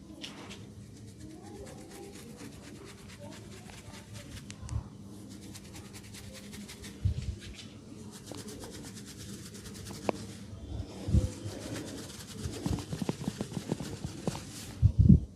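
Hands massaging an oiled head: quiet rubbing with scattered soft low thumps of patting, which come in a quick run near the end.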